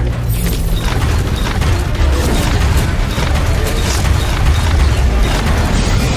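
Dramatic film score under dense action sound effects: mechanical clanking with crashes and booms throughout.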